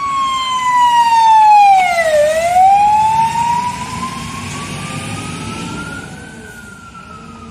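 Mercedes Atego fire engine's siren sounding a slow wail: its pitch falls to a low point about two seconds in, climbs slowly, and starts falling again near the end. It is loud at first and fades as the truck drives away, with the truck's engine rumbling underneath.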